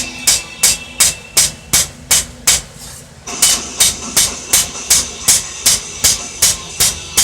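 Metal hammer blows on steel at an anvil in a steady rhythm of about three strikes a second, with a light ring after each blow. A steady background noise grows louder about three seconds in.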